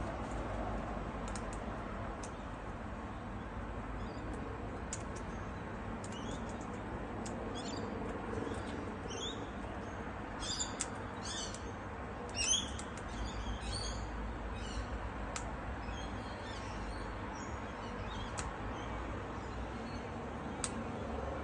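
Small birds chirping in quick, short high calls, busiest in the middle stretch with a louder burst about halfway through, over a steady background hiss.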